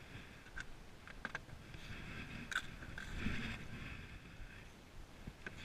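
Handling noise in a small plastic fishing boat: a few sharp knocks and clicks, then a longer stretch of scraping and rustling a little past halfway as hands, rod and gear rub against the hull and seat.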